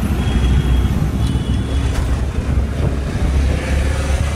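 Road traffic heard from a moving two-wheeler: a steady low engine and road rumble under a mix of surrounding traffic noise.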